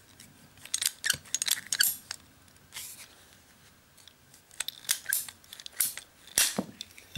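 Ratcheting plastic pipe cutter squeezed on a plastic plumbing pipe while the pipe is turned: short irregular clicks and crunches as the blade steps down into the pipe, in clusters about a second in and again from four and a half to six and a half seconds in.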